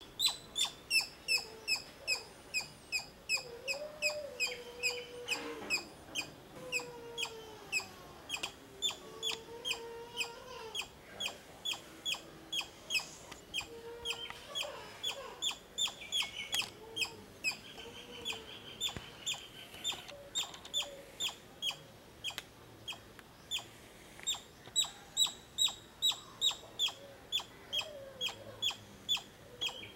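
Indian palm squirrel giving its repeated sharp, high chirping call, about two to three chirps a second, kept up without a break. Fainter, lower wavering calls sound underneath.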